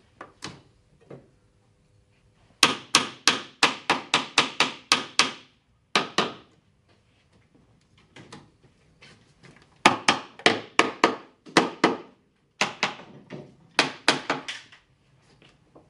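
One-handed bar clamp being tightened across a wooden curio shelf: its trigger pumped in fast runs of sharp clacks, about four or five a second, in four runs with short pauses between.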